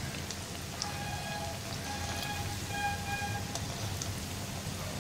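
Potato and semolina fingers deep-frying in hot oil in a cast-iron kadai: a steady sizzle with small, scattered crackles.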